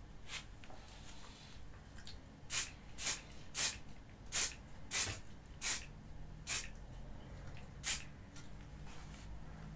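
Aerosol can of Halfords spray primer hissing in short bursts, about eight quick sprays a half-second or so apart, laying down a light first coat of primer.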